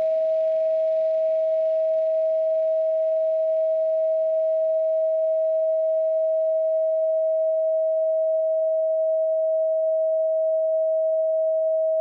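A steady pure sine tone at 639 Hz, a so-called solfeggio frequency, held at an unchanging pitch and level. A faint hazy wash under it fades away over the first several seconds.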